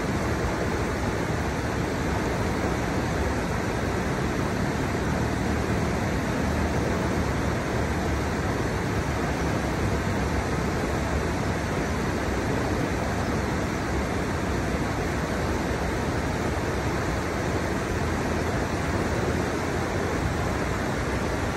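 River water pouring over the drops of a stepped riverbed: a steady, unchanging rush.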